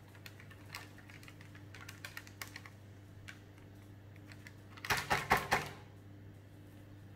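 A spatula scraping and tapping against a stainless steel mixing bowl as thick wholemeal dough is worked out into a parchment-lined loaf tin. There are scattered light clicks, with a louder quick run of scrapes and taps about five seconds in.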